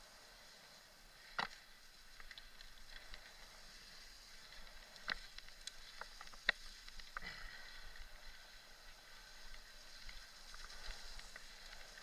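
Mountain bike rolling along a dirt trail: a faint steady hiss of tyres and air with scattered ticks and a few sharper clicks and knocks from the bike going over bumps, the loudest about a second and a half, five and six and a half seconds in.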